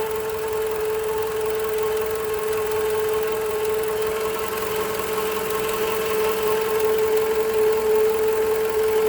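2010 Toyota RAV4 engine idling with a steady high-pitched whine, a whining or wheezing noise heard at idle; the owner found it to be the alternator.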